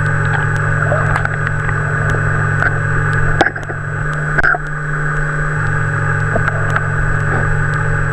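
Steady mechanical hum heard underwater, with two sharp pops about three and a half and four and a half seconds in.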